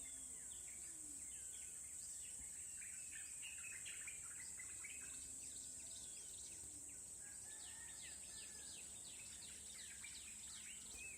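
Faint forest ambience: many birds chirping in short, overlapping notes over a steady high-pitched insect drone.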